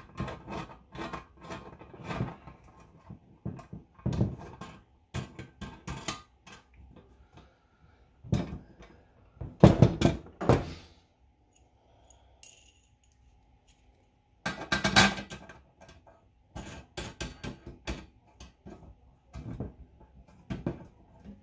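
Steel .50 cal ammo can lid and its bolt legs being handled on a workbench: irregular metal clinks and clicks as the bolts are pushed through the holes and the nuts and wing nuts threaded on, with louder knocks as the lid is set down and turned on the bench. The loudest knocks come about ten and fifteen seconds in, with a pause of a few seconds between them.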